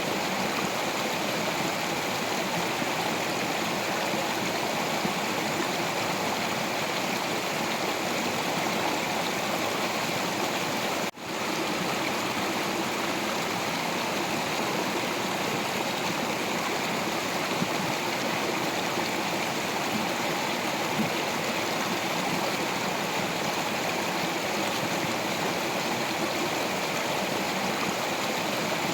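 Stream water flowing and splashing steadily over rocks, with a momentary break in the sound about eleven seconds in.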